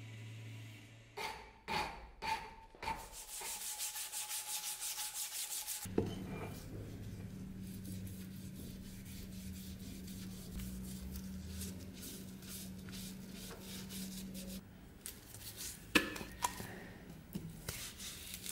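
Gloved hand rubbing a riveted wooden cleaver handle in quick, even back-and-forth strokes, with a few sharp knocks of the handle on the work surface. A belt grinder's motor hum stops about a second in.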